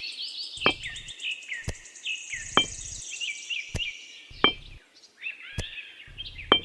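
Small birds chirping and twittering in quick, repeated falling notes, cut through by sharp clicks or taps about once a second.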